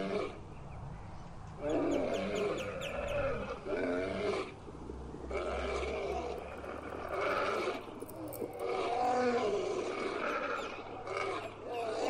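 Lion roaring, a series of about five separate roaring calls with short pauses between them.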